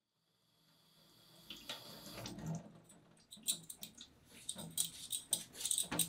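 Water and hands at a stainless steel kitchen sink as a potato is cleaned, with a run of quick, irregular scraping strokes from about halfway in. The sound fades in faintly from silence after about half a second.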